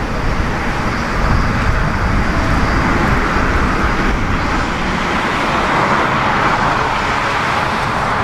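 Jet engines of a taxiing Boeing 757-223 freighter heard from a distance: a steady rushing rumble that grows slightly stronger near the end.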